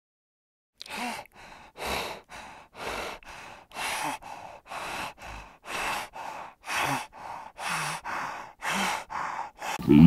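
Spotted hyena panting: a rhythmic run of breathy puffs starting about a second in, a loud one about once a second with softer ones between.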